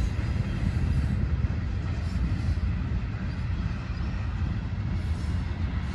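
Freight train rolling past, its tank cars and covered hopper cars making a steady low rumble on the rails.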